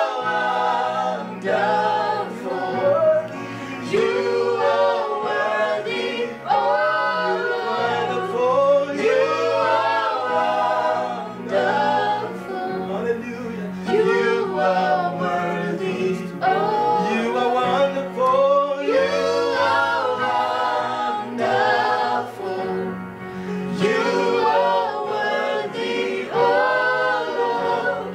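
Choir singing a gospel worship song, voices rising and falling over steady low held notes.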